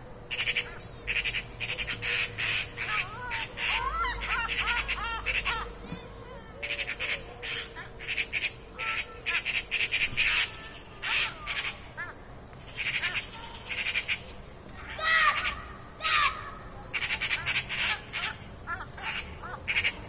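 A gull calling over and over: runs of short, harsh squawks, with a few yelping calls that glide up and down in pitch.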